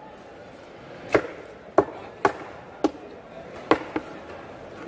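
A heavy knife chopping through large fish steaks and bone onto a wooden chopping block: six sharp chops at an uneven pace, starting about a second in.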